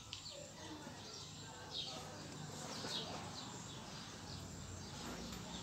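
Small birds chirping outdoors: short, high, falling chirps repeated about once a second over faint background noise.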